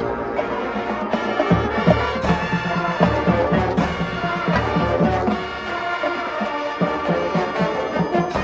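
High school marching band playing: brass and winds holding chords over a steady pulsing percussion beat.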